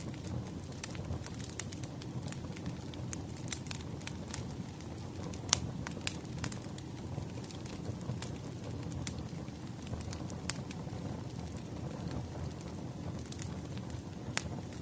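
Wood fire crackling: a steady low rumble with irregular sharp pops and snaps of burning firewood, the loudest about halfway through.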